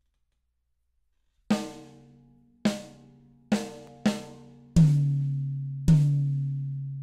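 Drums of a DW mini pro kit struck one at a time with wooden sticks: six single hits starting about a second and a half in, each ringing out with a clear pitched tone. The last two hits are louder and ring longer.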